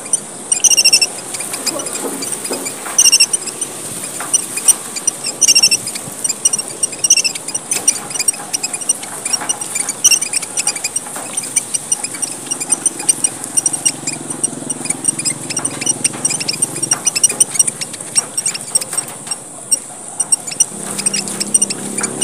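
A flock of emprit merah papua, tiny red finches, chattering busily in the 'gocar' style: a dense, unbroken stream of high chirps. Louder, falling call notes cut in every two to three seconds in the first half.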